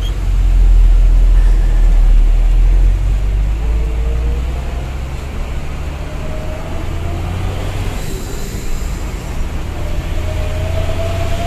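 Fuso Fighter dump truck's diesel engine and drivetrain heard from inside the cab while driving: a heavy low rumble, loudest in the first few seconds, with a thin whine that climbs in pitch through the second half.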